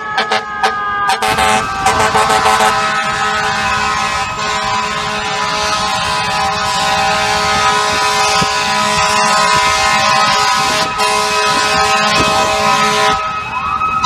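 Fire apparatus air horns: a run of quick short blasts, then a long steady multi-tone blast. A siren starts winding up, rising in pitch, near the end.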